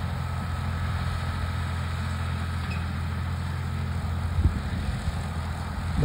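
Ford tractor engine running steadily as it powers a John Deere 410 round baler ejecting a finished bale, with a brief knock about four and a half seconds in.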